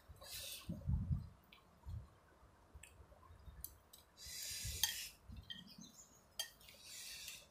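Fork and chopsticks clinking against a ceramic bowl of noodle soup, with several noisy slurps of noodles, the longest about a second long midway through.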